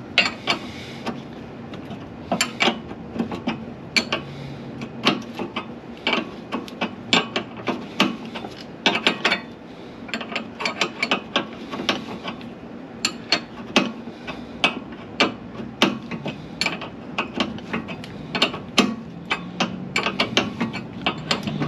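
A hand wrench turning a bolt on the car's underside: a long run of irregular, sharp metallic clicks, with brief pauses between strokes.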